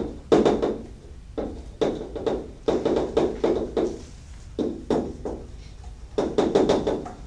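Chalk on a blackboard while writing: quick taps and scrapes of the chalk strokes, coming in about five short runs with pauses between.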